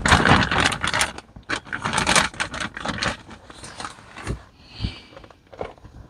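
Crinkling and rustling of a metallised plastic anti-static bag as a circuit card is slid out of it. The crackling is dense and loud for about the first three seconds, then thins to a few scattered rustles.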